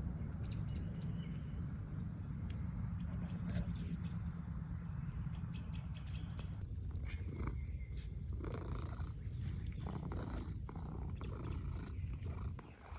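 Domestic cat purring steadily close to the microphone, with light rustles and clicks over it.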